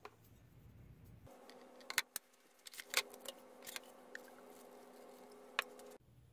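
A few sharp clicks and knocks of a steel knife blank being set down in a plastic tub and a can being handled, the loudest about two and three seconds in and another near the end, over a faint steady hum that starts about a second in and stops near the end.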